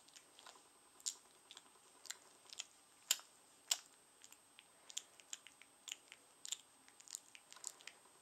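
Three-week-old rough collie puppy mouthing and nibbling a person's fingers: faint, irregular little mouth clicks and smacks, two louder ones about three seconds in.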